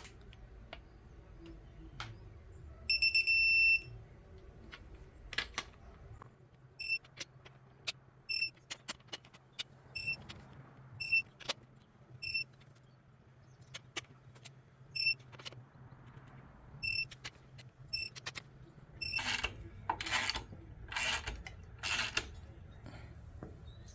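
Digital torque wrench beeping as bolts on the crankshaft main caps are brought to the final torque spec: one long beep about three seconds in, then a dozen or so short beeps spaced about a second apart, over sharp ratchet clicks. A few louder rasping bursts come near the end.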